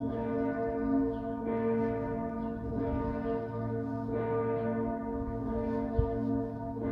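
Breisach Minster's church bells ringing together, several bells striking in overlapping turns with long humming tones. A short thump sounds about six seconds in.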